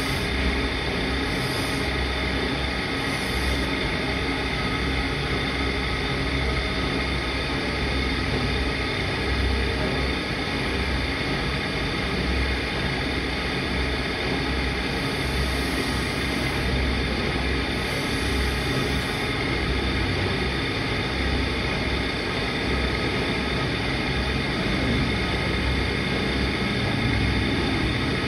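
Motor-driven abrasive grinding wheel on a shaft running steadily with a low, pulsing hum. A few brief hisses of a steel knife blade touching the wheel come near the start and again about midway.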